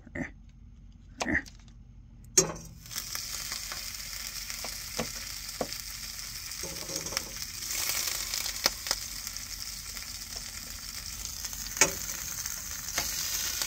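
Butter sizzling in a hot frying pan: a few light knife clicks, then a knock about two and a half seconds in and a steady high sizzle that grows louder around eight seconds, with scattered clicks and pops.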